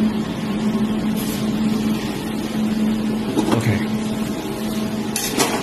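Jewelry laser welding machine running with a steady low hum, with a few short clicks in the second half.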